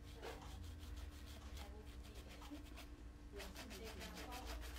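Paintbrush bristles scratching lightly across a painted surface in short strokes, faint, with a quick run of strokes near the end.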